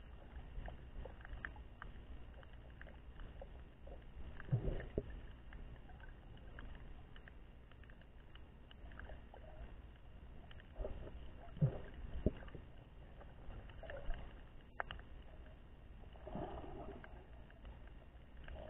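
Muffled water sound picked up by a camera held underwater: a steady low rumble with scattered faint clicks and crackles, and a few dull thumps, the loudest about four and a half and twelve seconds in.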